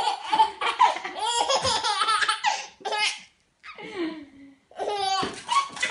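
A baby laughing hard in runs of high-pitched giggles, nearly unbroken for the first few seconds, then in shorter runs with brief pauses between them.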